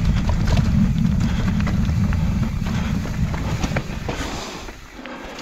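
Wind rumbling on the microphone while a Yeti mountain bike is ridden fast over a rough, wet trail, with scattered clicks and knocks from the tyres, chain and frame over roots and rocks. The rumble and rattling fade from about four seconds in as the bike slows.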